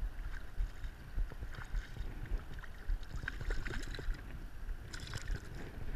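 Water sloshing and splashing close by, in short irregular splashes with a brief flurry of them about five seconds in, over a low rumble of wind on the microphone.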